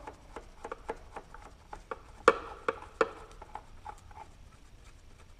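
Irregular small clicks and taps of a screwdriver and metal parts being worked at an outboard motor's shift rod connector to separate the shift rod, with two sharper clicks a little past two seconds and at three seconds in.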